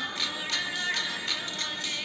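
Navratri dance song playing: a singing voice over a steady percussion beat.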